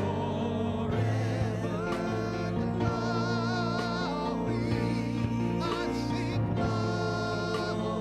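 Live church worship music: a band sustaining chords while a voice holds long, wavering notes without words.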